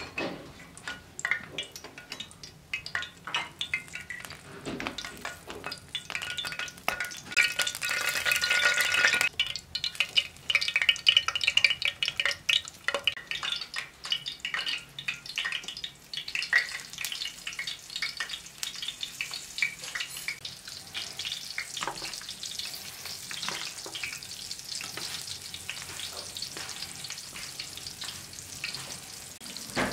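Crackling and sizzling with many small pops from a cast-iron wood-burning cookstove heating a pan of oil, busiest a few seconds in and then settling into an even crackle and hiss.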